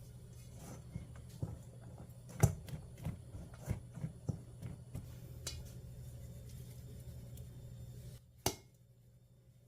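Scattered light clicks and knocks of objects being handled, over a steady low hum. The loudest knock comes about two and a half seconds in; the hum cuts out just before a last sharp click near the end.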